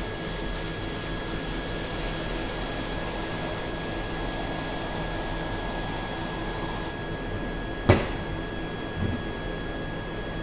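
Water spraying from a hose nozzle into a blender jug, a steady hiss that stops about seven seconds in, over a faint steady hum. A single sharp knock follows about a second later.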